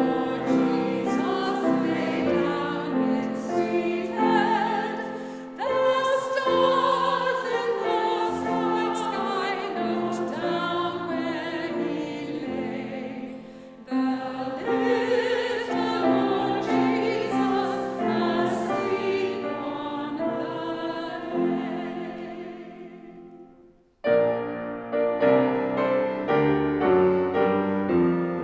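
Several voices, operatic sopranos among them, singing a Christmas carol with piano accompaniment. The singing fades out about 23 seconds in, and the piano alone starts up again a second later.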